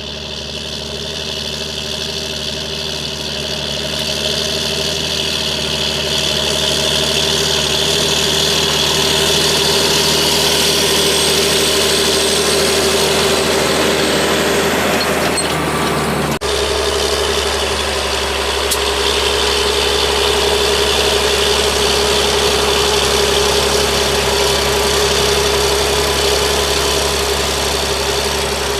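John Deere 8320 tractor's six-cylinder diesel engine running steadily, growing louder over the first few seconds, with an abrupt change in its tone about halfway through.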